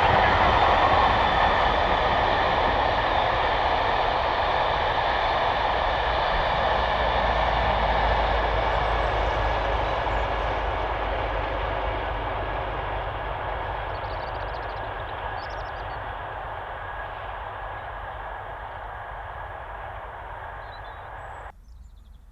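Train running on the rails, a steady rumble that slowly fades as it moves away, then cuts off suddenly near the end.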